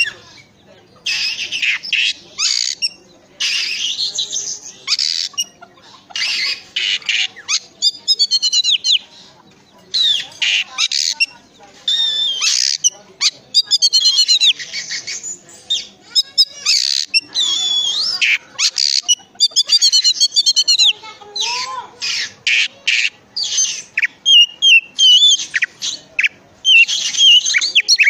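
Oriental magpie-robin (kacer) singing a loud, varied song: bursts of harsh rasping chatter alternating with clear whistled, warbling phrases, separated by only brief pauses.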